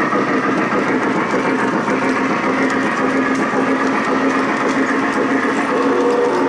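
Lionel Legacy model of the Nickel Plate Road 2-8-4 Berkshire #765 running with its sound system chuffing steadily, over the rolling clatter of its train of tank cars on the model track. A new steady tone joins about six seconds in.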